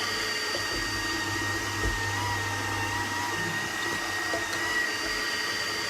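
Electric blender motor running steadily under load with a high whine, blending pear into juice.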